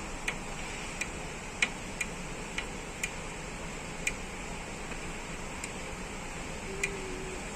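Small, irregular clicks and taps from a CPU cooling fan being handled and fitted onto its heatsink, about nine over a steady faint hiss.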